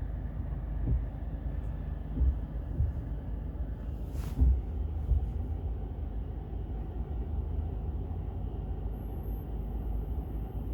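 Mercedes-Benz E-Class with a steady low rumble and a handful of irregular knocks over the first five seconds, the loudest about four seconds in. This is the knocking noise the car has.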